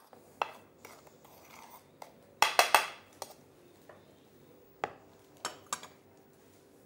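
Plates and metal utensils knocking and clinking on a stone countertop: a few light taps, then three loud clinks close together about two and a half seconds in, and a few scattered knocks later.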